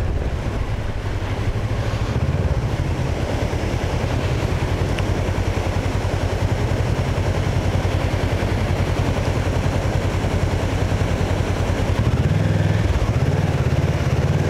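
Kawasaki Versys 650 parallel-twin engine running steadily under load at low riding speed, its rapid exhaust pulses heard up close from the bike, with a change in revs near the end.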